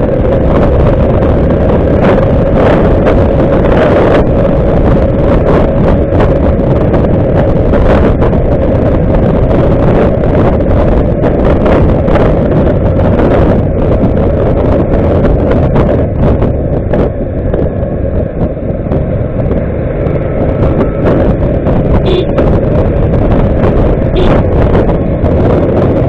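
Motorcycle riding at about 50 km/h: wind buffeting the microphone over the engine's steady drone, easing off a little for a few seconds around the middle.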